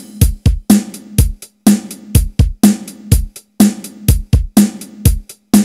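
Title-card music: a drum beat with kick and snare hits about twice a second over a held low note.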